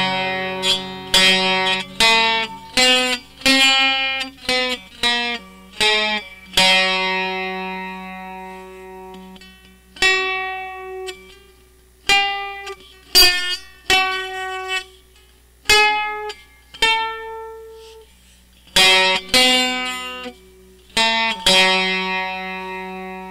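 Homemade six-string, three-course octave dulcitar (a stick-dulcimer type) with music-wire strings tuned DD aa dd, picked and fretted in a tune: quick notes over a steady drone at first, then slower single notes left to ring with short pauses, ending on a strum that rings out.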